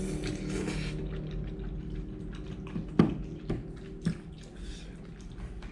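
Noodles being slurped from a fork, followed by mouth noises of eating. A fork then clicks sharply against a plastic takeaway container three times, about half a second apart, as more noodles are picked up.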